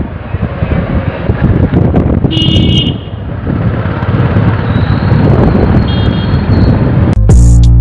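Wind buffeting the microphone and road noise while riding along a city road in traffic, with a vehicle horn sounding briefly about two and a half seconds in. Music starts near the end.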